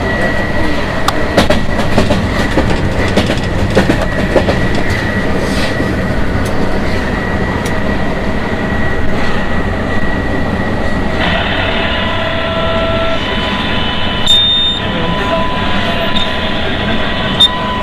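Running noise in the cab of a KZ8A electric freight locomotive under way: a steady rumble with scattered clicks from the wheels on the track and steady whining tones from the electrical equipment. About eleven seconds in, the whining changes to a new set of higher tones.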